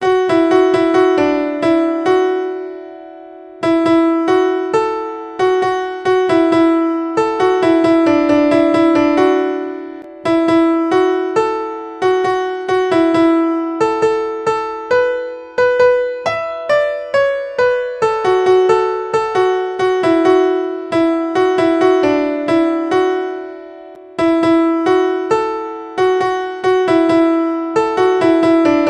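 Ringtone tune played on an electric piano-like keyboard: a melody of struck, decaying notes in repeating phrases. It fades out and restarts three times.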